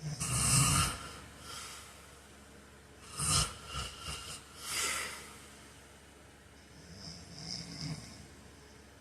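A man snoring in his sleep: a loud snore about a second long at the start, a run of several shorter snores from about three to five seconds in, and a fainter snore near the end.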